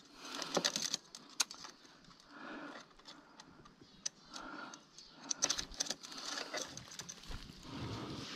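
Faint, irregular light clicks and metallic rattles with soft rustling, from a bicycle with a broken derailleur being handled.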